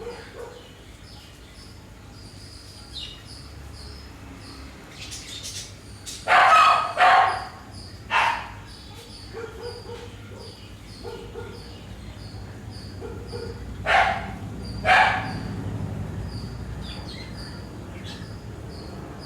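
A dog barking five times: a quick pair, a single bark a second later, then another pair. Short high chirps repeat steadily underneath.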